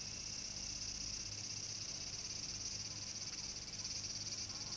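Insects chirring in a steady, high-pitched drone, the summer-heat background of the soundtrack, with a faint low hum underneath.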